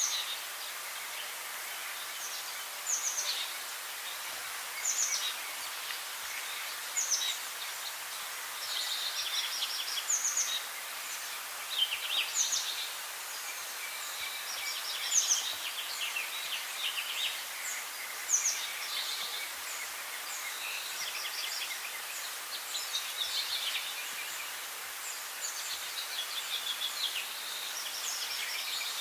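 Wild songbirds chirping and singing in short phrases and rapid trills, a new call every second or so, over a steady background hiss.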